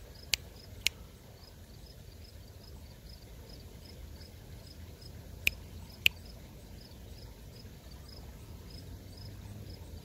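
Finger snaps, two pairs of sharp clicks, made to imitate a female cicada's reply and coax the male cicada on her hand into buzzing; he stays silent. Faint, even chirping of insects, about two chirps a second, runs underneath.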